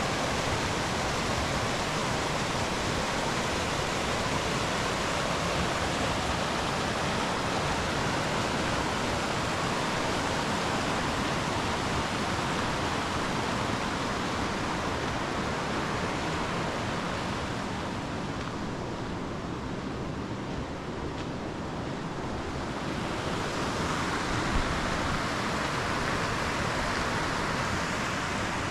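Steady rush of water from a mountain stream running through a rocky gorge. It softens for a few seconds past the middle and comes back, with a single short knock near the end.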